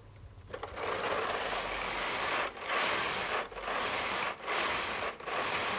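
Brother KH-950i knitting machine carriage being pushed back and forth across the needle bed, knitting rows of a two-colour Fair Isle pattern: a steady rasping rush that starts about half a second in. The first pass is longer, then about one pass a second, each broken by a short pause as the carriage reverses.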